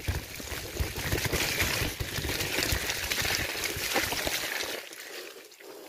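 Tyres rolling and splashing through wet mud and puddles on a dirt trail, with wind and bumps rumbling on the handlebar-mounted microphone; it dies down about five seconds in.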